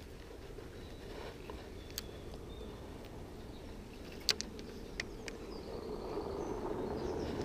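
Low outdoor rumble with four sharp clicks from a spinning reel and rod being handled during a cast and retrieve, the loudest a little past four seconds in.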